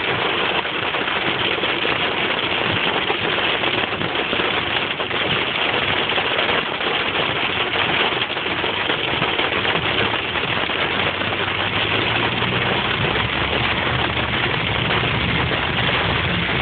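Heavy rain pelting a car's roof and windshield, heard from inside the car as a loud, steady hiss. In the last few seconds the car's engine hum rises underneath as the car moves off.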